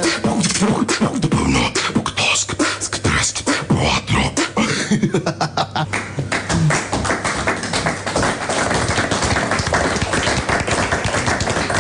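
A man beatboxing: fast mouth-made drum beats of kicks, snares and hi-hat clicks, with hummed or sung pitched lines layered over them, so that several voices sound at once.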